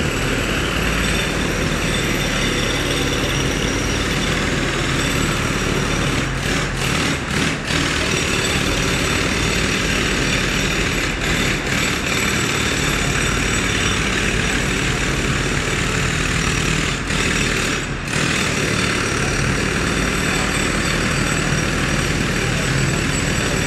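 Heavy road-works machinery running steadily, a dense engine noise with a high hiss over it. It dips briefly twice, around a third of the way in and again near three quarters.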